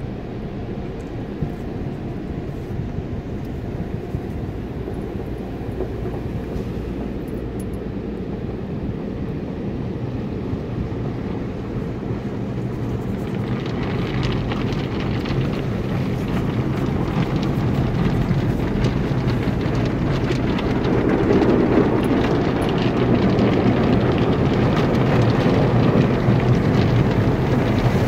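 Automatic tunnel car wash heard from inside the car's cabin: water spray and soft-cloth brushes scrubbing the windshield and body, muffled through the glass, over a steady low hum. The scrubbing grows louder and fuller about halfway through as the brushes reach the car.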